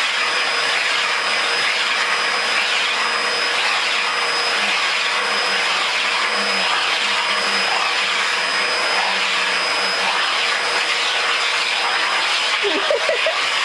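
Vacuum cleaner running steadily, its wand nozzle drawn over a cat's fur: an even rushing noise with a thin, steady high whine.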